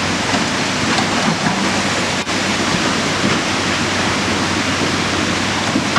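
Steady, loud rush of falling water from Rupse Waterfall, with a brief dip a little over two seconds in.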